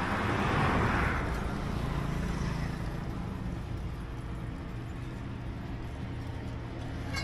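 A motor vehicle passing by, its noise swelling and fading over the first two seconds, over a steady low engine hum.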